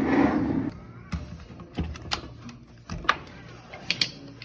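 A dishwasher being pulled out and worked on: a short scraping rumble at the start, then scattered sharp clicks and knocks of hands and tools on the machine, a pair of them about three seconds in and another pair near the end.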